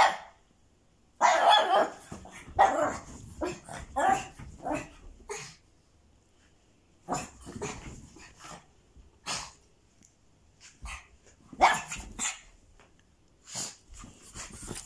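Pug barking in short, irregular bursts, with gaps of a second or more between them.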